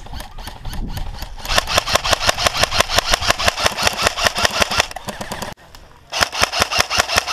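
Airsoft rifle firing rapid strings of shots, several a second: a long string starting about a second and a half in, a short break, then a second string near the end.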